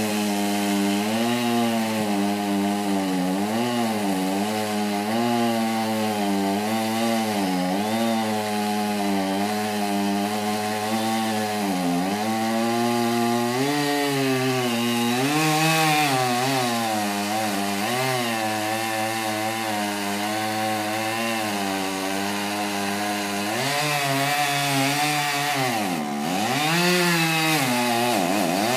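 Chainsaw running hard while cutting into the base of a large tree trunk, its engine pitch wavering up and down as the bar loads and frees in the wood, and dropping sharply twice near the end as it bogs in the cut.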